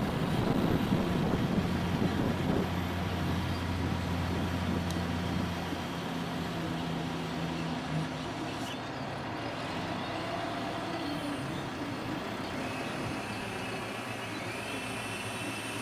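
A heavy construction machine's engine runs with a steady low hum. The hum drops away about six seconds in, leaving the machine running lower under general site noise.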